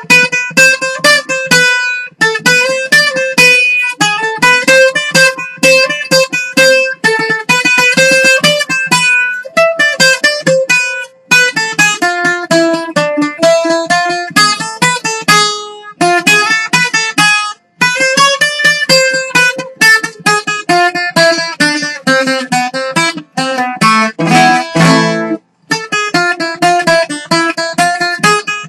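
Greek bouzouki played solo, a hasapiko dance tune in quick picked single notes, with a few short breaks and a brief passage of dense strummed chords about 24 seconds in.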